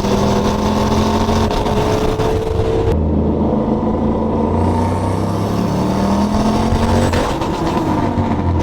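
Turbocharged Ford Mustang Bullitt V8 running while driving, its pitch rising slowly as the car gains speed. About three seconds in the sound changes abruptly, and the pitch climbs again.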